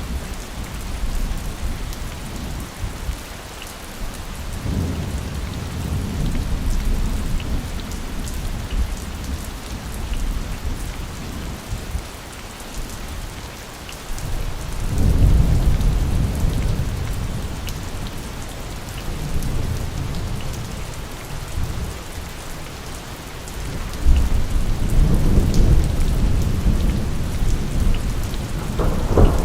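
Steady heavy rain falling, with rolling thunder rumbling deep and low several times, loudest about fifteen seconds in and again from about twenty-four seconds.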